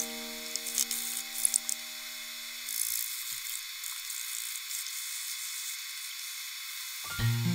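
Sanding block scraping over a balsa-wood model airplane fuselage in short strokes, a scratchy hiss that is busiest in the first few seconds. Background music's held notes fade out early and music comes back in near the end.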